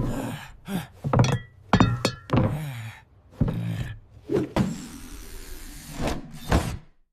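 Cartoon sound effects: a quick string of thunks and knocks mixed with short pitched sounds that slide downward, then a hissing stretch about five seconds in, broken by a few more knocks.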